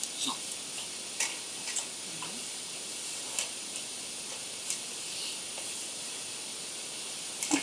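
Steady hiss with a few scattered faint clicks and ticks, the sharpest near the end. There is no sneeze or nose blow.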